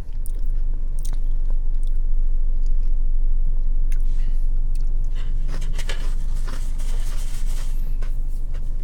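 Close-up chewing of a crunchy Nature Valley almond-butter biscuit sandwich: scattered crisp crunches that come thicker and faster about two-thirds of the way through, over a steady low hum.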